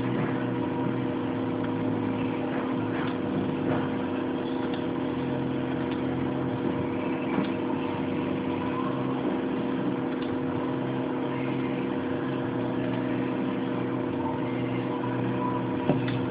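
A steady machine hum with several constant tones over a noisy background. A few faint clicks sound over it.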